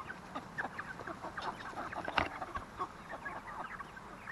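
A small flock of backyard chickens clucking, many short overlapping calls as they move along together. A single sharp knock about two seconds in is the loudest sound.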